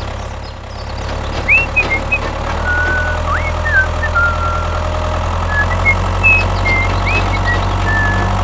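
Tractor engine running steadily at idle, a low even drone that grows slightly louder about two and a half seconds in, with short high chirps scattered over it.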